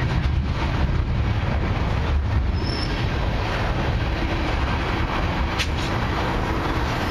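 Freight cars of a CN train (loaded tank cars, then centerbeam lumber flatcars) rolling past on steel wheels, a steady rail rumble. A short high wheel squeal cuts in about three seconds in, and there is a single sharp click a little after five seconds.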